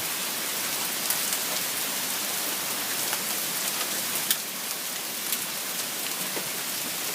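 Steady downpour of rain and hail hitting the ground, with scattered sharp hailstone impacts standing out every second or so as the hailstorm slows down.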